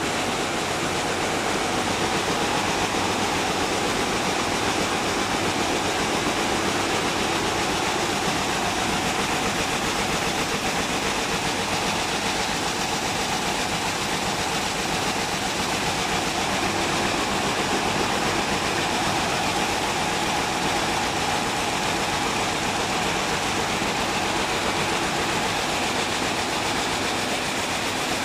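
Picanol weaving looms running, many together: a loud, steady, dense mechanical clatter.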